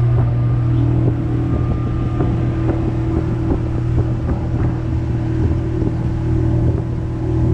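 An engine running steadily at an even speed, a low hum with faint clicks and rattles over it.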